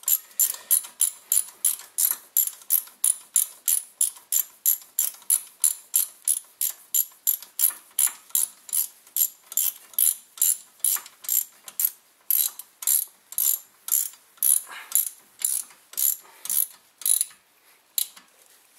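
Ratchet wrench with an 8 mm socket clicking in a steady run of about three sharp clicks a second as a bolt is run into the front brake caliper. The clicks thin out and stop near the end.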